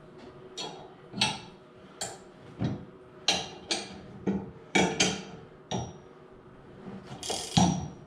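Ratchet wrench clicking in short, irregular strokes as bolts are tightened down, with the loudest click near the end.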